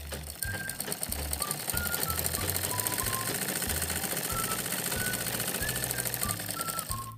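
Domestic sewing machine stitching a seam at a steady fast rate, a rapid even clatter of the needle mechanism. It starts a moment in and eases off near the end.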